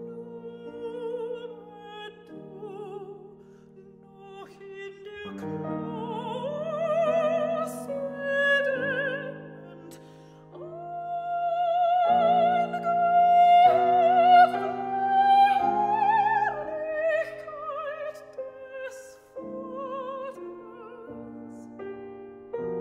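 Soprano singing a German art song with wide vibrato over sustained piano chords. Her line rises to its loudest, highest held notes in the middle, then falls back to softer phrases near the end.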